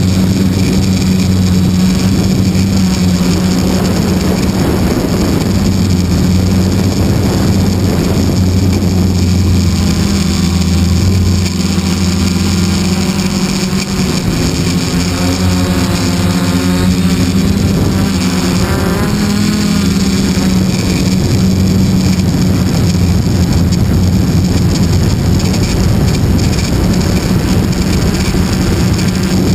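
Radio-controlled model airplane's motor and propeller running steadily in flight, heard from a camera mounted on the plane with wind rushing past the microphone. The steady hum wavers in pitch for a few seconds around the middle.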